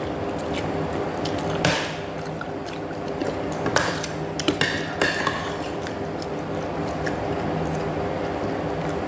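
Broth sipped from a metal spoon, with wet sips and a few clinks of the spoon against the bowl, over a steady background hum.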